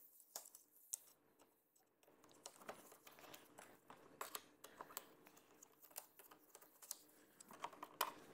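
Faint, irregular small clicks and ticks of hand work on a motorcycle fairing speaker: a screwdriver backing out the speaker's mounting screws, then the loosened speaker being worked out of its mount.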